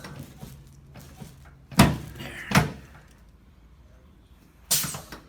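Chiropractic adjustment thrusts on the right side joint: two sharp cracking knocks a little under a second apart, then a softer burst near the end.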